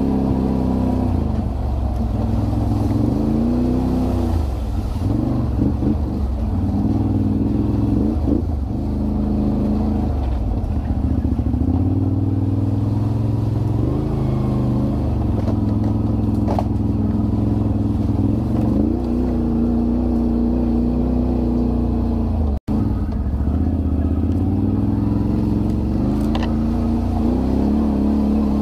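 All-terrain vehicle engine running under load as it is ridden over a trail, its pitch rising and falling again and again with the throttle, with a few faint knocks. The sound cuts out for an instant about three-quarters of the way through.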